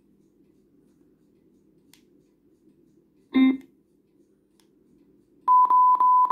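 Wonky Monkey Bluetooth speaker playing its prompt sounds: a short plucked-sounding chime, then a run of nearly joined high beeps at one pitch.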